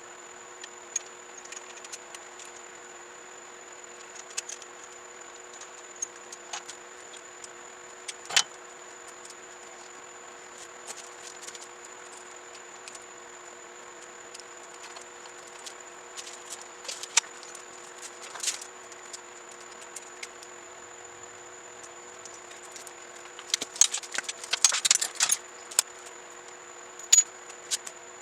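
Small metal parts and hand tools clicking and clinking as something is taken apart by hand: scattered taps, then a quick flurry of rattling clicks near the end. A steady electrical hum runs underneath.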